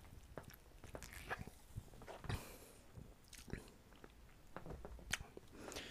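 Faint gulps and swallows of a person drinking flat cola from an aluminium can, then small mouth and lip smacks while tasting it.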